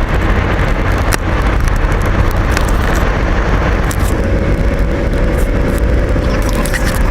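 Car driving: steady, loud road and engine noise.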